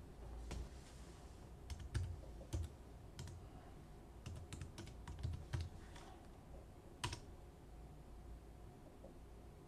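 Computer keyboard keys being pressed as a command is typed: scattered keystrokes, a quicker run in the middle, and one harder key press about seven seconds in.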